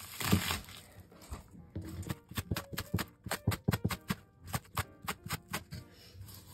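Kitchen knife chopping a bundle of green onions on a wooden cutting board. One louder cut comes just after the start, then a quick run of rapid chops knocks against the board. Light background music plays underneath.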